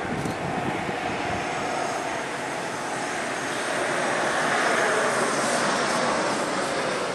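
Freight train passing behind electric locomotives: a steady rolling rumble of wheels on rail that swells to its loudest about five seconds in, then eases.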